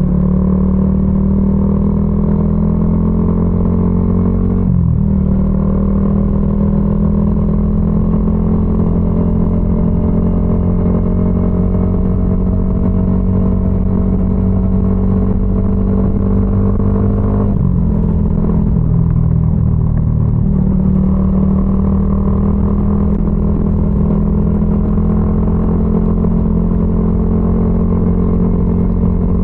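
Yamaha XSR155's 155 cc single-cylinder engine running under way through a DIY aftermarket exhaust. Its note climbs slowly and drops briefly twice, about five and eighteen seconds in.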